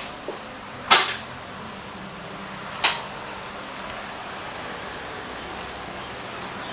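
Two sharp clacks, one about a second in and a softer one about two seconds later, over a steady background hum.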